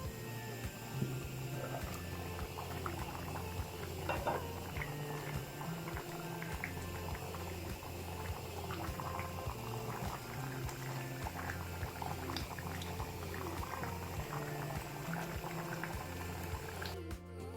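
Curry bubbling and spitting as it simmers in a pan, over background music with a steady, repeating bass line. The bubbling cuts off just before the end, leaving only the music.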